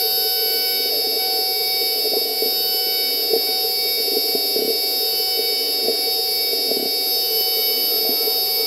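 CNC milling machine cutting titanium with an end mill: a steady multi-toned whine from the spindle and cutter, with irregular light ticks as chips break off.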